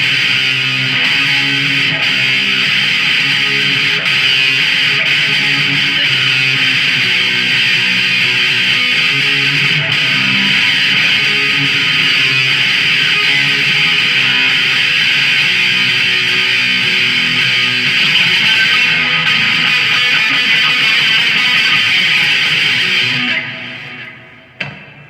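Ibanez Artcore electric guitar played through an amplifier, a continuous passage of picked notes and strums that stops near the end and rings out briefly.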